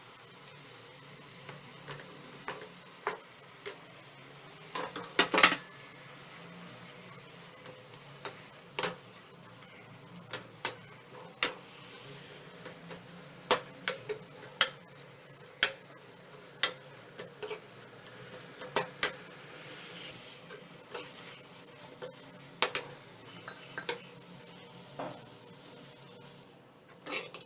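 A spatula stirring greens in a pan, with irregular sharp taps and scrapes against the pan over a faint steady sizzle. The loudest clatter comes about five seconds in.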